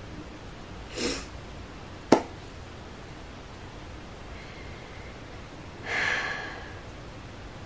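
A woman sniffling after crying: a short sniff about a second in and a longer one near the end. A sharp click just after two seconds is the loudest sound.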